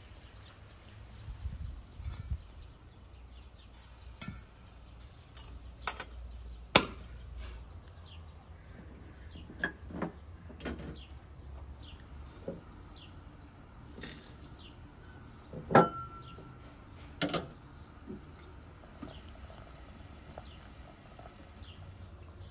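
Scattered sharp knocks and clinks, several seconds apart, the loudest about a third of the way in and again past the middle, where one rings briefly like metal. Birds chirp faintly between them.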